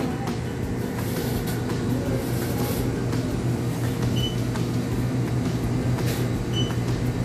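Steady low machinery hum, with a few faint clicks and two short high beeps about four and six and a half seconds in.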